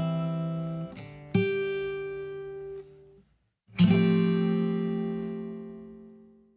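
Acoustic guitar background music strumming chords. A last chord about four seconds in rings out and fades away to silence.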